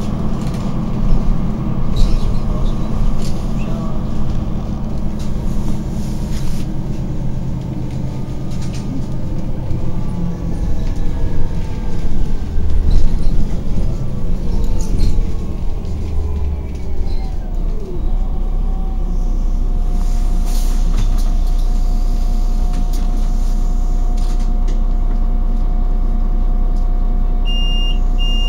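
City bus heard from inside the passenger cabin: its engine and drivetrain run as it drives, with a whine that falls in pitch as the bus slows to a halt. After that the engine idles with a steady low hum, and two short high beeps sound near the end.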